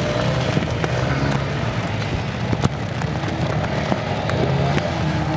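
Honda CRF250L off-road motorcycle engines running, their pitch shifting as the throttle is worked, with a few sharp cracks about two and a half and four seconds in.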